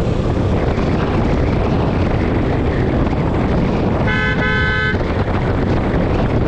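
Steady road and wind noise, with a vehicle horn giving two short toots about four seconds in.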